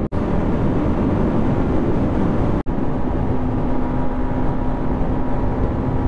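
Yamaha MT-15's 155 cc single-cylinder engine running while riding, mixed with heavy wind rush over the microphone; from a little under halfway in the engine holds a steady note. The sound cuts out for an instant twice.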